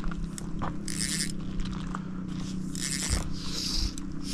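Fly line zipping and swishing as the fly rod is worked, three short strokes about a second or more apart, over a steady low hum.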